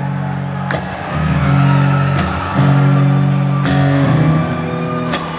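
Rock band playing a slow ballad live through a big PA system: electric guitar and sustained bass notes changing chord every second or two, with a drum hit about every second and a half.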